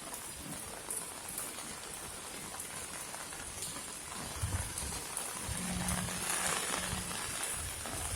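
Rain falling steadily in a courtyard: an even hiss with scattered drip ticks. It grows heavier around six seconds in, with a low hum and a few low thumps underneath.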